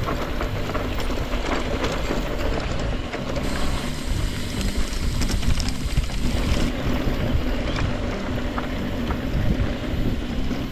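Wind rushing over an action camera's microphone and the rattle of Trek Rail e-mountain bikes rolling over a rough trail, with scattered clicks and knocks.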